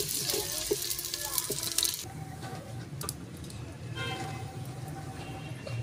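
Sliced onions sizzling in hot oil in a clay pot as they are stirred with a wooden spoon, with a few scrapes of the spoon. The sizzle cuts off abruptly about two seconds in, leaving quieter background sound.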